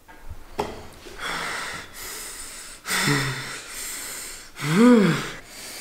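A young man breathing hard in heavy, noisy huffs, with a short low grunt partway through, then a loud rising-and-falling groan near the end. It is an angry, agitated reaction.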